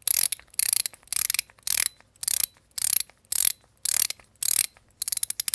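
ACEdc Alpha Star Core haptic coin being turned by hand, its spring-loaded balls snapping over the detents in quick ratcheting runs of fine metal clicks, about two runs a second.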